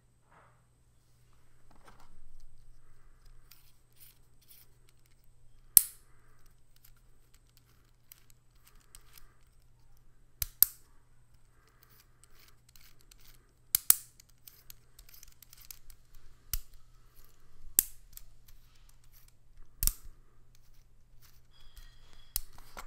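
Lego Technic gearbox worked by hand: about nine sharp plastic clicks spread through as the selector on top is pushed and snaps into place, with faint rattling of plastic gears turning in between.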